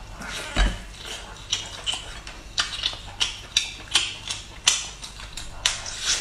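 Close-up eating sounds of a person biting into and chewing a whole roast chicken: a run of short, sharp mouth clicks, about two a second.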